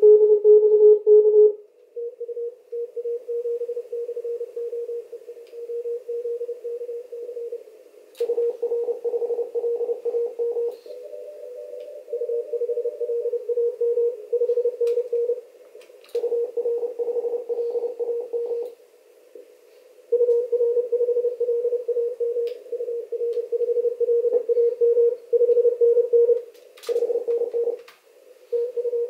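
Morse code (CW) signals on an amateur radio receiver, heard through a narrow CW filter: fast on-off keyed tones at nearly one pitch, from several stations in turn, over a hiss of band noise.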